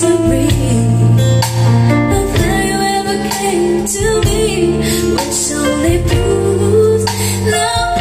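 A JBL PartyBox 710 portable party speaker playing a song with a female singer, loud.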